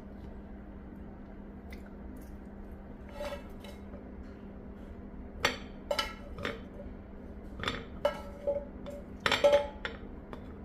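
Roasted chestnuts being tipped from a metal frying pan onto a ceramic plate with a wooden spoon: a series of irregular clinks and knocks as chestnuts, pan and spoon hit the plate, the loudest cluster near the end, over a faint steady hum.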